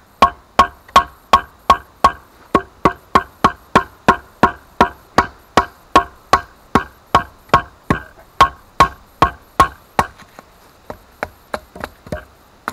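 Wooden club striking the back of a Mora Bushcraft SRT stainless knife blade, batoning it down through a small stick to split kindling: a steady run of sharp wooden knocks, about two and a half a second, turning quieter and sparser about ten seconds in.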